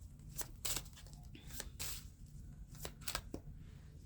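Tarot cards being shuffled by hand: a string of short, irregular papery snaps and flicks, about eight in four seconds.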